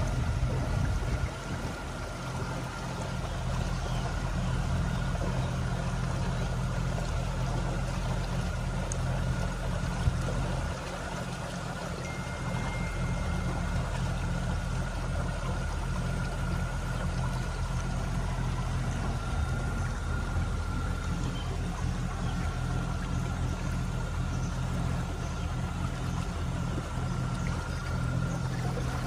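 Small canal boat's motor running steadily under way, a low even hum with a faint steady whine, over the wash of water along the hull.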